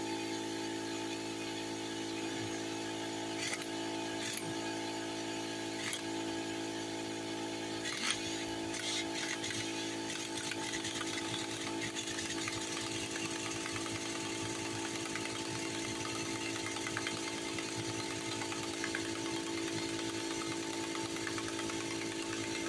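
Electric air compressor running with a steady, even hum, and a few sharp metallic clicks and knocks in the first third from hand work on the brake assembly.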